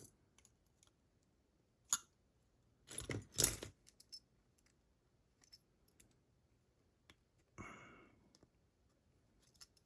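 Small metal clicks and clatters from a DORMA DC500 lock cylinder and hand tools being handled while the cylinder is taken apart and its retaining clips are worked on. There is a sharp click about two seconds in and a cluster of clatters around three seconds in, then a brief rustle near eight seconds.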